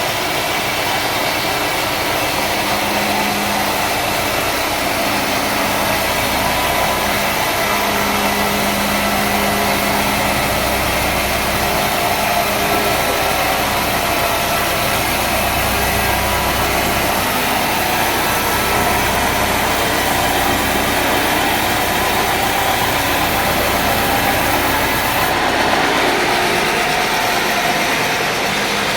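Sawmill engine and machinery running steadily and loudly, a continuous mechanical drone with a low hum.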